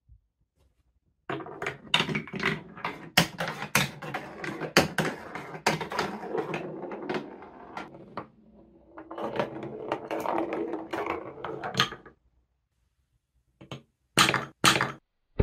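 A wooden ball rolling along a TrixTrack wooden marble-run track and its plastic wave slopes, with a continuous rolling rumble and frequent clacks at the joints and curves. The rolling starts about a second in, eases off briefly, then stops about 12 seconds in. Near the end come three sharp wooden knocks as the ball drops into the palm-tree hammer tower.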